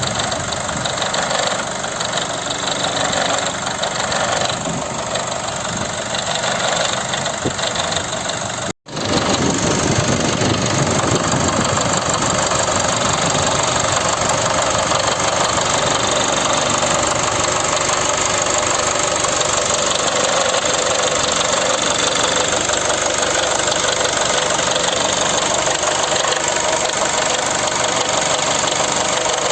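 Nissan Primera P12's YD22DDT 2.2-litre diesel engine running steadily, with an abnormal extra noise in its running that the owner says shows up mainly once the engine is warm. The sound cuts out for an instant about nine seconds in and comes back a little louder.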